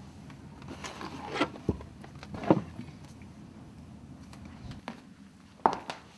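A few scattered scrapes and knocks, with a low thud about one and a half seconds in. The loudest scrape comes about two and a half seconds in, and two sharp knocks follow close together near the end.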